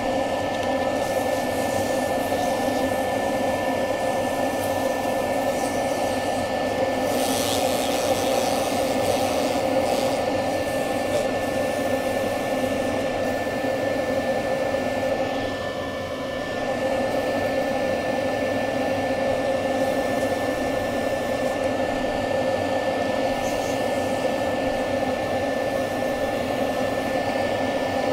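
Wood lathe running with a steady whine while abrasive paper rubs on a spinning juniper spatula; the sanding hiss grows louder for a few seconds about a quarter of the way in, and the sound dips briefly just past the middle.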